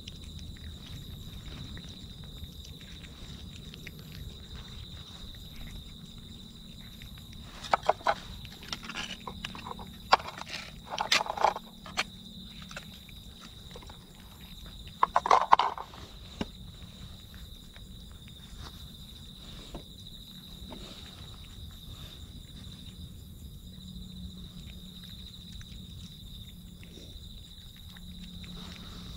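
Two kittens eating pieces of meat, with bursts of chewing and smacking clicks about 8, 10 to 11 and 15 seconds in. Crickets chirr steadily underneath.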